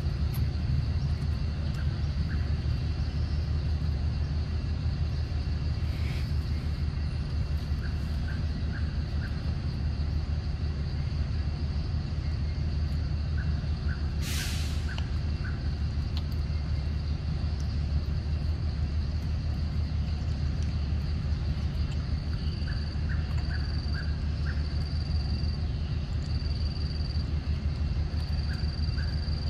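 Steady low rumble throughout, with a thin high-pitched insect drone above it that becomes a regular pulsing call in the last several seconds. A brief rushing noise comes about halfway through.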